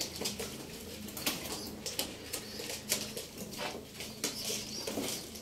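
Pigeons being handled and taken from their wire-fronted cages: scattered sharp clicks, knocks and rustles throughout.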